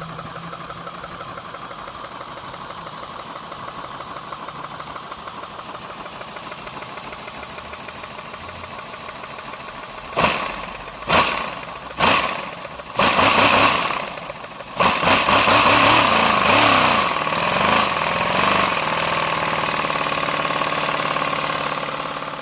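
3D-printed V4 compressed-air engine running with a fast, steady pulsing exhaust. About ten seconds in come three short loud bursts of air about a second apart, then it runs louder from about fifteen seconds on.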